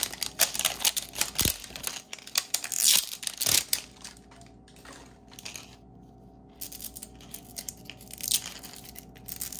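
Plastic wrapper being torn and peeled off a Zuru Mini Brands toy capsule, crackling and crinkling in quick runs, with a quieter spell midway before more crinkling.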